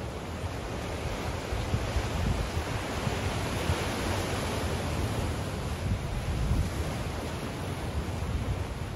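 Waves washing against the shore in a steady hiss, swelling around the middle, with wind gusting on the microphone in a low, uneven rumble.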